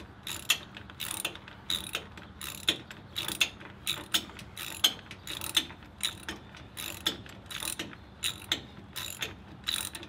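Socket ratchet wrench with a deep 5/8-inch socket clicking in quick repeated strokes, a short run of clicks about twice a second, as it cranks a mounting bolt down and starts to take up tension.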